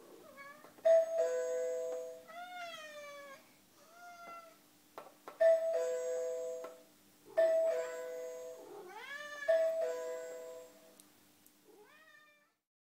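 Doorbell chime rung four times, each a two-note ding-dong, pressed by a Maine Coon cat asking to be let out. The cat meows between the rings with rising-and-falling calls.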